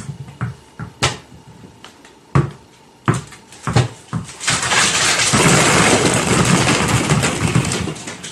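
Balls bouncing on a hardwood floor: a few separate knocks at first. Then, from about four and a half seconds in, a flood of hollow plastic ball-pit balls comes down at once, a dense rattling clatter that thins out near the end.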